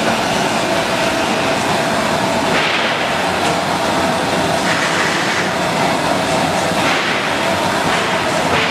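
Commercial popcorn machine running: a steady mechanical rumble with a faint steady hum, and a few brief hissy surges.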